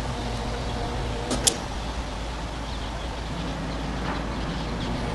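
Heavy machinery engine running steadily as a low rumble, with one short, sharp knock about one and a half seconds in.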